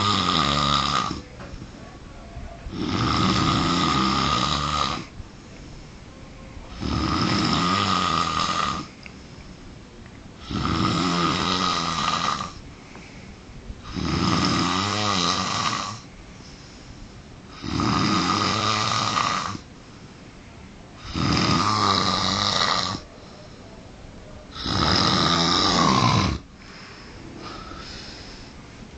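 A man snoring in his sleep, extreme snoring. Eight loud snores about two seconds each come every three to four seconds, then the snoring stops near the end.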